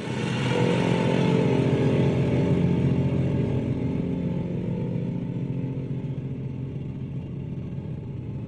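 A small engine running steadily with a fast pulsing beat. It starts abruptly, fades slowly and cuts off sharply at the end.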